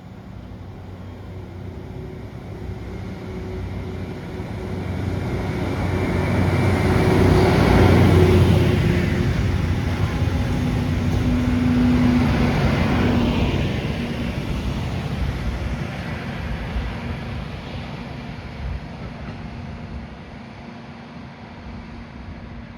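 Loram rail grinding train passing by with its diesel engines running. It grows louder to a peak about eight seconds in, peaks again around twelve seconds, then slowly fades away.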